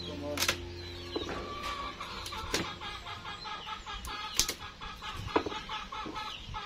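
A cleaver chopping grilled chicken on a wooden stump block: four sharp chops at uneven intervals, with chickens clucking in the background throughout.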